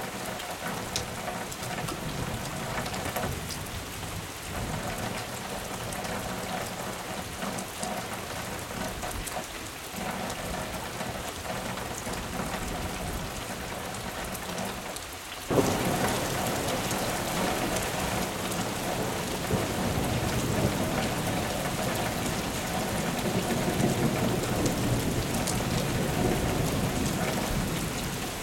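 Steady summer rain falling on a gravel yard, with water running off the ground; the rain noise jumps suddenly louder about halfway through and stays there.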